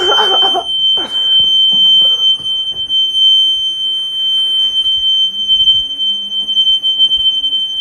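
Smoke detector sounding one continuous, steady high-pitched tone, set off by smoke and still going after being pulled off its mount.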